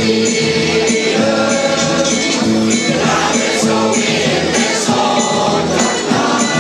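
Mixed choir of men and women singing together, holding long sustained notes.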